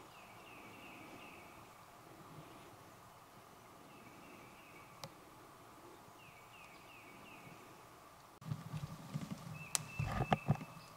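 Three short runs of quick, high yelping notes, four or five to a run, like a wild turkey hen yelping. Then, from about eight seconds in, loud rustling and sharp knocks in dry leaves close to the microphone.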